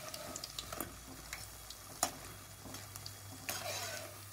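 Besan pakoras frying in hot oil in a kadhai: a steady sizzle with scattered sharp crackles, and light scrapes and clicks of a steel slotted spoon turning them in the pan.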